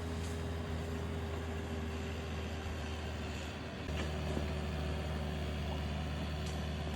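Excavator engine running steadily, its note stepping up and growing louder about four seconds in.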